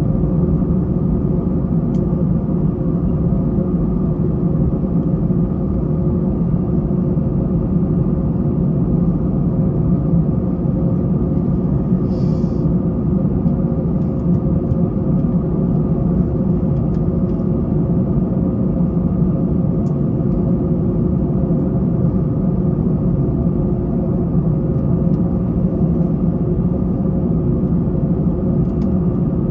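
Steady cabin rumble inside an Airbus A321, heard from a seat over the wing as it taxis, with the jet engines running at low thrust and a low hum running through it.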